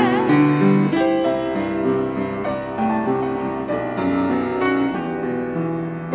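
Solo piano playing an instrumental interlude between verses of a slow ballad: a melody of separate notes over sustained chords. Just at the start, a woman's held sung note with vibrato fades out.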